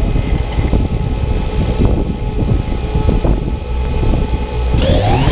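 Quadcopter drone's motors and propellers spinning at idle while it sits on the ground: a steady multi-tone whine over a low rumble. Near the end the motors spin up with a rising whine as it lifts off.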